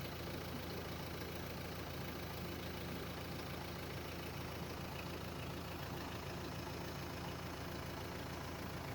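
Tractor engine running steadily with an even low hum.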